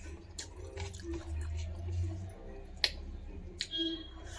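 Eating sounds from a mukbang of rice and egg curry: chewing with a few sharp clicks, the loudest almost three seconds in. A brief high-pitched squeak comes near the end.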